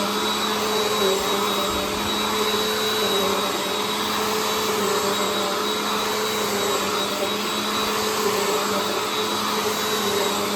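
Bissell CleanView Compact 3508 upright bagless vacuum cleaner running steadily, its motor giving a continuous whine with the rush of suction air.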